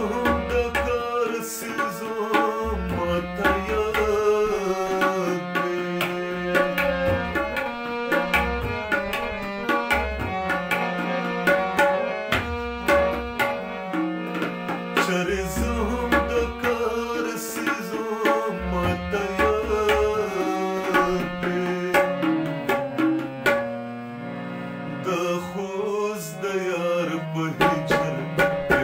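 Harmonium playing sustained reedy tones with tabla drumming a steady, quick rhythm under it, and a man's voice singing in places.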